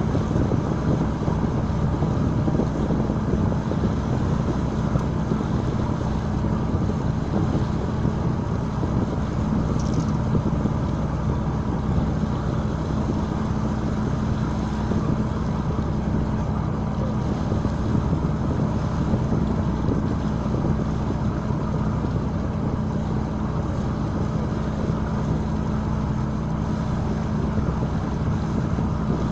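A boat's engine running steadily, with wind and water noise over the microphone.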